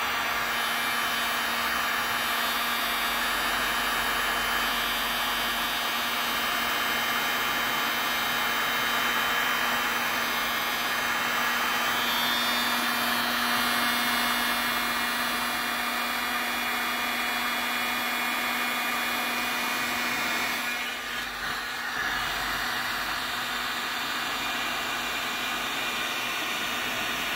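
Heat gun running steadily, its fan blowing hot air with a steady hum, to shrink heat-shrink tubing over crimped battery-cable lugs. The sound wavers briefly about three-quarters of the way through.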